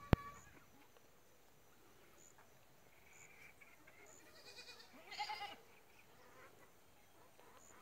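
Domestic turkeys calling: a short call about four and a half seconds in, then a louder call of about half a second just after five seconds. A single sharp click comes right at the start.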